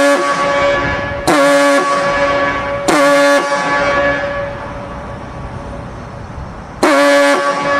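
Diaphone fog signal sounding in short, loud blasts of a low, steady horn tone, each trailing off in a long echo. Three blasts come about a second and a half apart, then one more follows after a pause of about three seconds.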